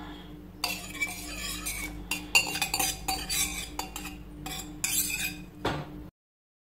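Wire whisk scraping and clinking against a stainless steel mixing bowl, beating eggs into creamed butter. The sound cuts off suddenly near the end.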